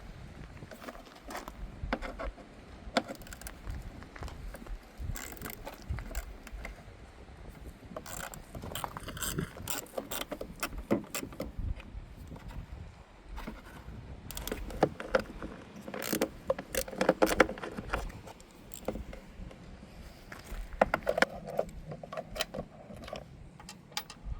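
Hand ratchet with a 7mm socket clicking in quick runs, with small metal clinks, as the license plate holder bolts are loosened.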